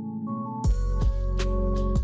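Background electronic music: sustained chords, with a deep, steady beat coming in about half a second in.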